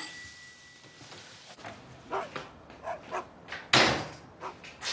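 A door being opened and handled, with a dog starting to bark; the loudest, sharpest sound comes a little before four seconds in.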